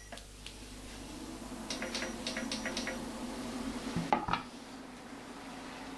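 Metal utensil clinking and knocking against a pan of frying vegetables as they are stirred: a quick run of about five light clinks around two seconds in, then a couple of heavier knocks about four seconds in, over a low steady hum.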